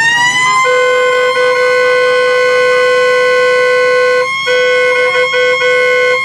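Siren-like wail: a loud pitched tone that rises, holds steady, and falls away at the end. A lower steady tone joins it and cuts out briefly a few times near the end.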